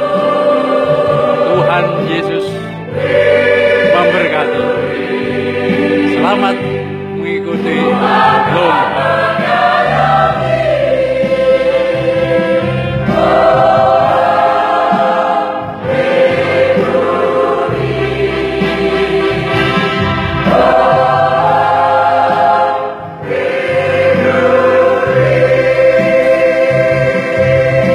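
Mixed choir of men and women singing in parts, long-held chords sung in phrases with short breaks between them.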